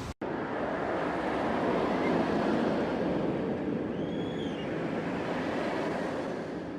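Steady rushing noise like wind or surf, with a faint short chirp about four seconds in.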